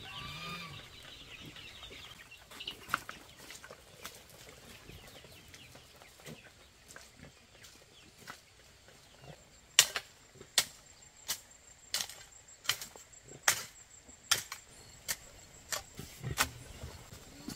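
Chickens clucking briefly at the very start. From about ten seconds in comes a run of about ten sharp, evenly spaced knocks, a little more than one a second, over a faint steady high tone.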